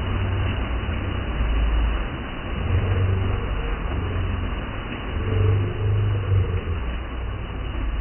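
Waterfall water rushing: an even hiss over a heavy low rumble that swells and drops unevenly every second or two.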